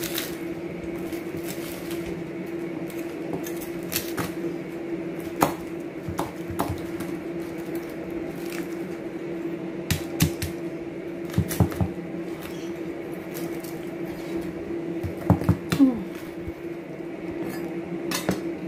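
Chef's knife cutting up a crispy whole fried chicken on a plastic cutting board: irregular crunches of the crust and knocks of the blade on the board, in small clusters with the loudest about halfway and near three-quarters through. A steady low hum runs underneath.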